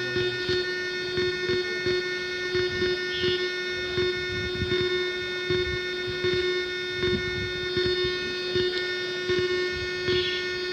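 Amplifier speaker putting out a steady whining hum from a Bluetooth-USB player module left in Bluetooth mode, several steady tones at once with a regular pulsing. This is the interference noise of the module's 5 V supply, which the repairer cures by powering the module from a separate mobile charger.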